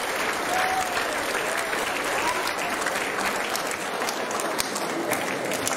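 Audience applauding with steady clapping.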